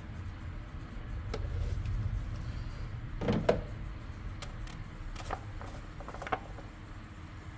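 Hands working the plastic oil filler cap on the engine's valve cover, with a rag wiped around it: a few light clicks and knocks, the loudest about three and a half seconds in, over a low rumble that swells in the first few seconds.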